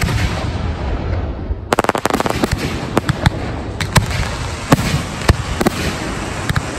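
Aerial firework shells bursting overhead: a sharp bang at the start, then from about two seconds in a dense, fast crackling with a string of separate sharp bangs every half second or so.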